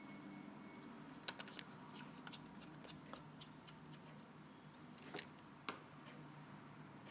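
Light clicks and taps of small tools and phone parts handled during reassembly of an iPhone 4S: a quick cluster about a second in and two sharper clicks about five seconds in, over a low steady hum.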